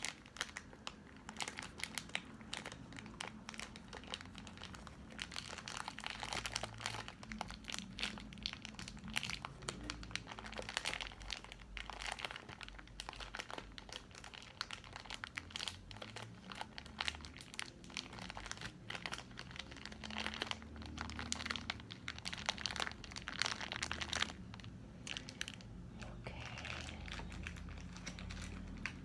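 Snack packaging crinkled and handled by hand, with a dense, irregular crackling that turns to a softer, thinner rustle near the end.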